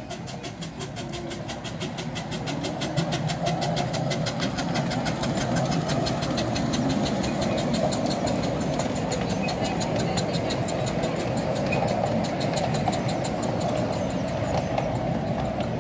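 Miniature steam train running into a station, heard from on board: a quick, even beat of clicks over a steady rush of steam and running noise, the beat fading out near the end as the train draws in.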